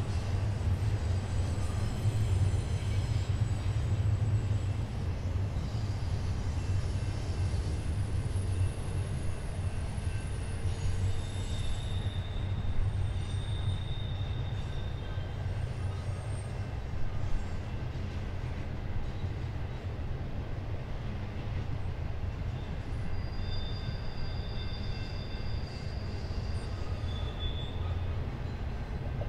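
Intermodal freight train rolling past with a steady low rumble, its wheels giving off thin high-pitched squeals that come and go several times, the flange squeal of wheels on a curve.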